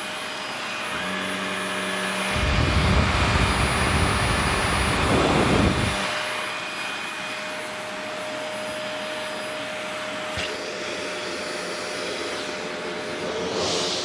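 Upright vacuum cleaner running with a steady motor whine, with a louder, rougher rumble from about two to six seconds in.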